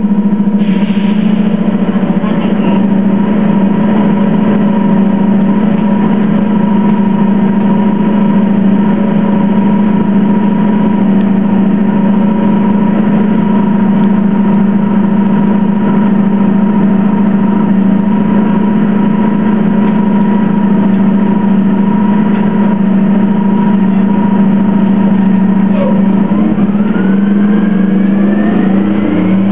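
Orion VII CNG city bus with a Detroit Diesel Series 50G natural-gas engine running steadily with a constant hum, with a short hiss about a second in. Near the end a rising whine sets in as the bus picks up speed.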